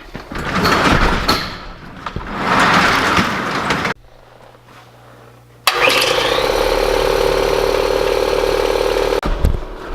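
An air compressor kicks on about six seconds in and runs with a loud, steady drone, then cuts off near the end. Before it there is a stretch of rushing noise, then a quieter low hum.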